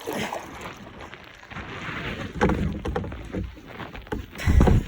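Fishing kayak moving on the water: hull and paddle knocks with water noise, a cluster of knocks about halfway through and a heavy low thump near the end.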